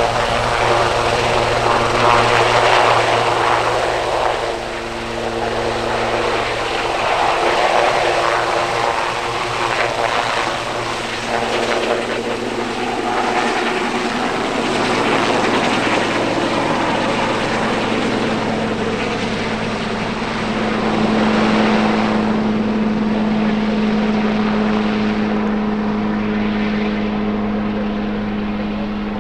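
Sikorsky S-76 helicopter lifting off and climbing away, with steady rotor and twin-turbine engine noise. The high end fades over the last several seconds as the helicopter draws away, leaving a steady hum.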